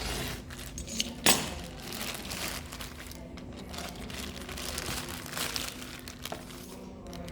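Packaging crinkling and rustling as it is handled and opened, with one sharp click about a second in.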